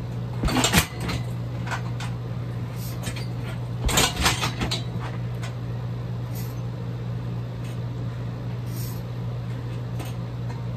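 Kicks landing on a hanging heavy bag twice, about half a second in and again about four seconds in, each a quick cluster of thuds and rattles, with a few faint knocks between, over a steady low hum.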